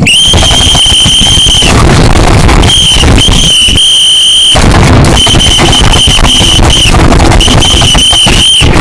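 A very loud, shrill, high-pitched steady tone blasted on and off in several bursts of uneven length, up to about two seconds each, over a harsh, noisy, distorted rumble. It is used as a prank alarm to wake someone.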